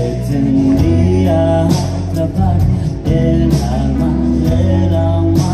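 Live rock band: a man singing over electric guitars and a steady drum beat, with drum hits about twice a second.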